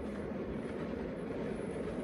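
Miniature 5-inch gauge train running along the track: a steady low sound with no clear beat.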